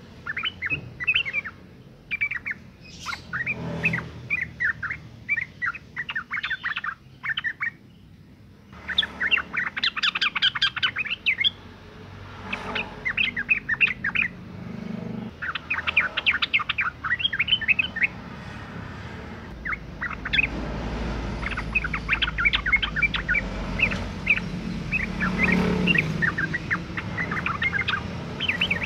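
Female yellow-vented bulbul (trucukan) giving its breeding-condition call: bursts of quick, chattering chirps repeated phrase after phrase with short pauses between them. A low rumble sits underneath in the last third.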